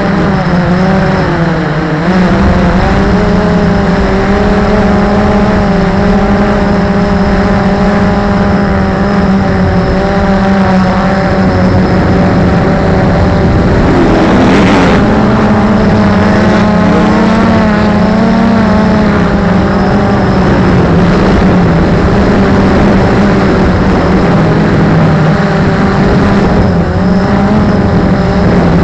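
Multirotor drone's motors and propellers humming steadily, heard close up from the camera on the drone itself, the pitch wavering slightly as it hovers and turns.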